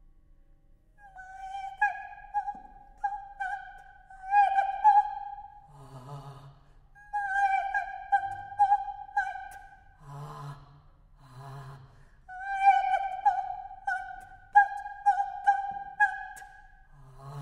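Unaccompanied mezzo-soprano singing a high line, mostly on one pitch in short repeated notes with sharp consonants. It is broken three times by short, low, breathy sounds.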